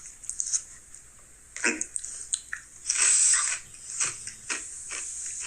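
Someone chewing crunchy Ruffles ridged potato chips, with several irregular crunches, the loudest a little past halfway.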